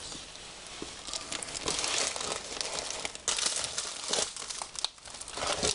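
Rustling and crinkling of a stiff, rolled diamond-painting canvas being handled and rolled back up, in irregular crackly strokes.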